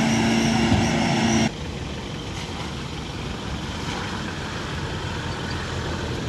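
Vehicle engine held at high revs under load while a stuck pickup is pulled out on a tow strap, cut off abruptly about a second and a half in. Then a quieter, steady engine rumble of a Toyota Land Cruiser driving slowly over muddy ground.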